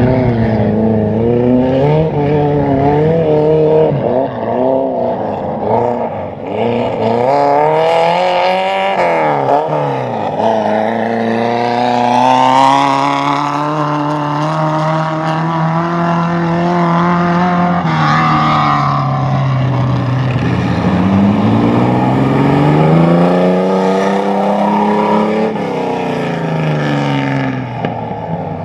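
Race car engine running hard, its pitch climbing and falling as it accelerates and slows. The revs drop deeply about ten seconds in and again around twenty seconds, then climb back.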